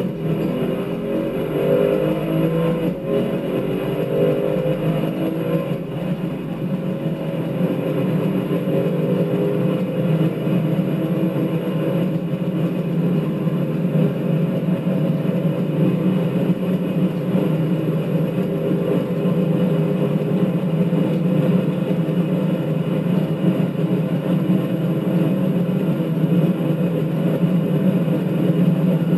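Audi RS6's twin-turbo V8 under full throttle, heard from inside the cabin, pulling hard from about 90 to nearly 290 km/h. The engine note climbs and drops back at each upshift of the eight-speed automatic, the shifts spacing out as speed rises.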